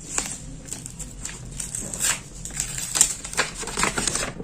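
Black wrapping paper being unfolded and pulled off a packaged planner: irregular crinkling and rustling with sharper crackles and rips, the strongest about two and three seconds in.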